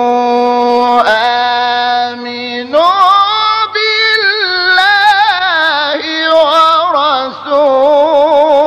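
A solo voice chanting Quran verses in a melodic recitation style. It holds one long note for about the first second, steps up, then about a third of the way in climbs to a higher phrase with wavering ornaments on drawn-out vowels.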